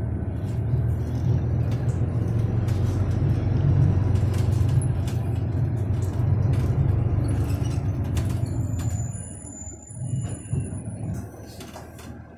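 Cabin of a New Flyer Xcelsior XDE40 diesel-electric hybrid bus under way: a steady low drivetrain rumble with road noise. About three-quarters of the way through it drops to a much quieter level as the bus slows, with a thin high squeal around then.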